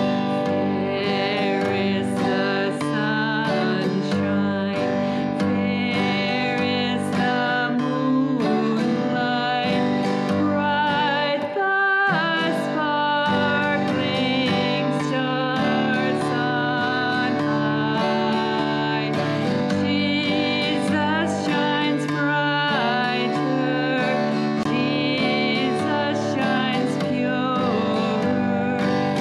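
A woman singing with vibrato, accompanying herself on a strummed acoustic guitar, with a brief break in the sound about twelve seconds in.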